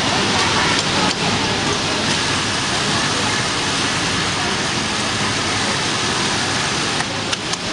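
Steady din of a garment factory floor: many industrial sewing machines running at once, with a few sharp clicks near the end.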